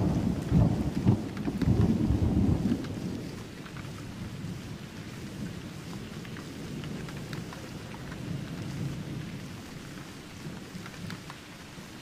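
Rain falling steadily in a thunderstorm, with a low rumble of thunder over the first three seconds that dies away.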